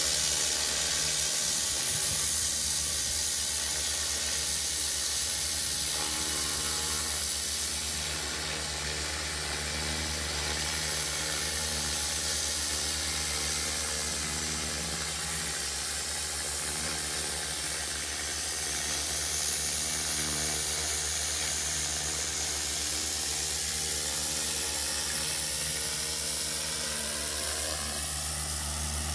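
High-pressure water jet from a pressure washer's telescopic lance spraying onto roof tiles: a steady hiss over the pressure washer's steady low hum.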